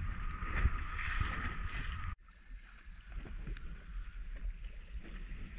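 A boat under way on choppy water: a steady engine drone with a faint whine, water rushing past the hull and wind on the microphone. About two seconds in it cuts off abruptly to much quieter sound of the boat at rest, with water slapping and lapping at the hull and a low wind rumble.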